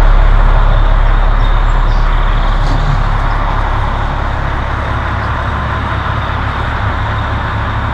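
A big cement mixer truck's diesel engine running with a heavy low rumble, gradually getting quieter.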